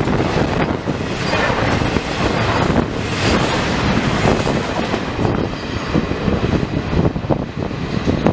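Intermodal freight train's container-laden cars rolling past at speed, wheels clattering on the rails, with wind buffeting the microphone.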